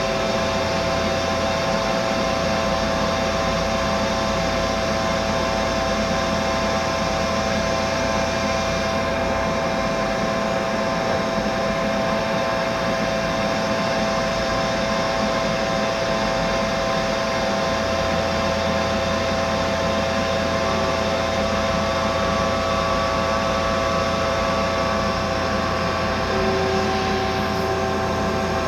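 Mazak Integrex multitasking CNC lathe running while machining an aluminium part: a steady mechanical hum and hiss with several steady whining tones.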